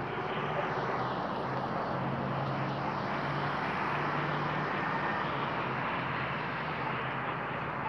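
Steady road traffic: engines and tyres making a continuous rumble with a low hum, and no sharp sounds.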